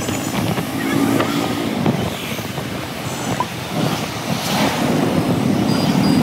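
Busy motorbike traffic heard while riding on a motorbike: scooter engines and road noise in a steady mix.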